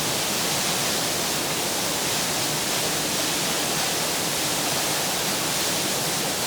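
Steady rush of a waterfall plunging onto rocks, heard close at its base.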